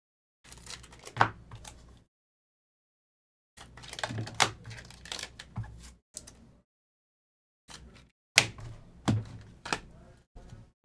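Trading cards being handled: shuffled, flicked and set down on a table, making clicks, taps and rustling in three short bursts with a few sharper snaps, and dead silence between the bursts.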